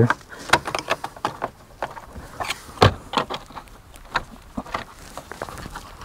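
Plastic trim tool clicking and scraping as it is worked under the edge of an Acura driver's door panel, prying at the panel's retaining clips: a string of irregular small clicks, one louder about three seconds in.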